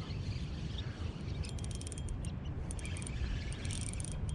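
Steady low rumble of wind on the microphone, with two short bursts of rapid high-pitched chirps.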